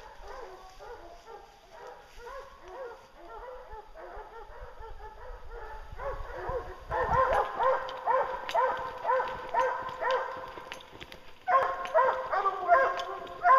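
A pack of English and Walker hounds baying on a bear, many voices overlapping in repeated drawn-out bawls. They grow much louder about seven seconds in and break off briefly near the end before going on.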